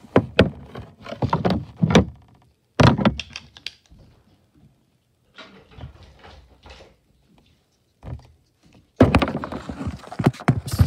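Knocks and thumps of things being handled, then from about nine seconds in a loud stretch of rubbing and clatter as the camera is picked up and moved.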